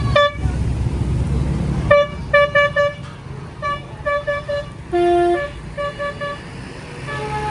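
Tour bus's musical telolet horn playing a quick tune of short pitched toots in groups of three or four, with one lower, longer note about five seconds in. Engine rumble underneath, strongest in the first two seconds.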